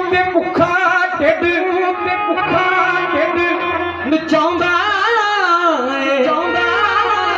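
Amplified live Punjabi folk music: a melody with a wavering, bending line over a steady low drone, between sung verses.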